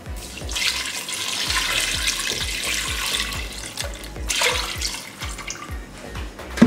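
Water poured from a plastic jug into an aluminium pressure cooker, splashing onto the meat and spices as it fills. The pour breaks off about four seconds in and comes again briefly.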